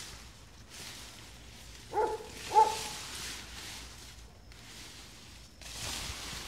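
A dog barks twice, short and about half a second apart, over a rustling hiss of tall grass and weeds.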